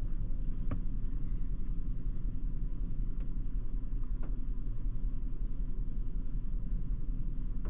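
2019 Hyundai Elantra's 2.0 L four-cylinder engine idling steadily with a cylinder 4 misfire (code P0304), which the owner suspects is a faulty ignition coil. A few faint clicks sound over the rumble.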